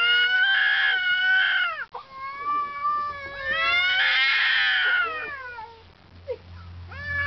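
Two domestic cats yowling at each other in long, drawn-out, wavering howls. One call cuts off about two seconds in, and a second, louder one rises into a harsh scream midway before it dies away near the end.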